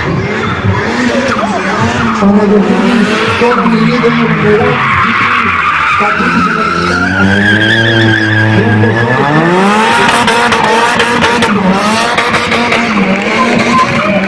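Ford Sierra drifting in tight circles, its engine revving hard and bouncing against high revs while the rear tyres squeal. About six seconds in the revs sag and a squeal rises, then the engine climbs back about three seconds later.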